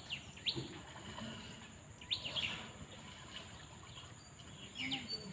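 Birds calling: short, sharp chirps in small clusters, about half a second in, around two seconds in, and again near the end.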